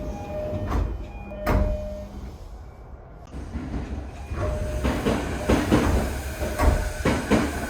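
Door chime of a JR East E233 series 0-subseries train, set T71, whose chime differs from the other E233 sets: short chime tones, with a sharp knock of the sliding doors about a second and a half in. About four and a half seconds in another chime tone sounds, followed by a run of door knocks and clatters.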